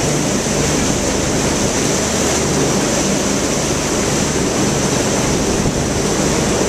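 Rushing water from a ship's wake and wind on the microphone, over a steady low drone from the vessel's engines.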